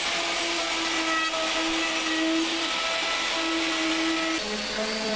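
Electric router running at speed, cutting along the edge of a solid pine tabletop: a loud, steady whine. A little over four seconds in, the tone shifts lower.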